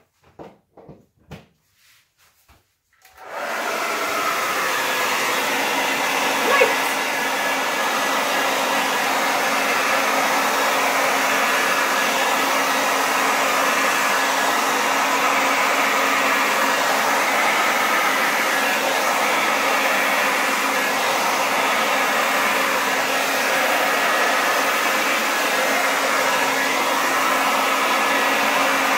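Handheld hair dryer switched on about three seconds in and running steadily with a constant whir and hum, blowing on wet acrylic pour paint. A few soft knocks come before it starts.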